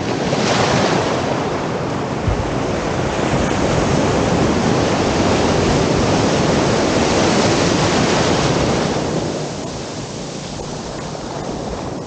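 Sea surf breaking and rushing up the beach: a long wash of noise that swells about half a second in and falls away after about nine seconds.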